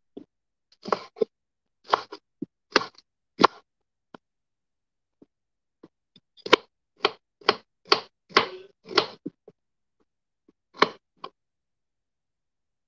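Kitchen knife cutting through petchay (bok choy) stalks onto a wooden cutting board: short crisp knocks, about two a second, in two runs with a pause of a couple of seconds between them and a last pair near the end.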